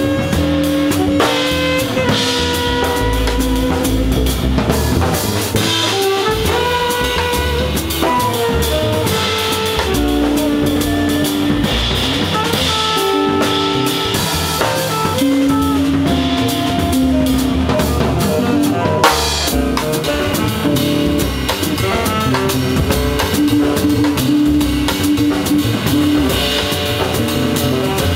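Small jazz group playing live: double bass and drum kit under a line of quick melodic notes, with a sharp drum accent a little after halfway.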